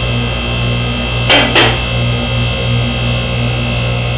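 BendPak MaxJax lift's 120-volt electric hydraulic power unit running steadily under a near-capacity load of about 6,000 pounds, drawing about 11 amps: a steady hum with a high whine over it. Two sharp clicks come about a second and a half in.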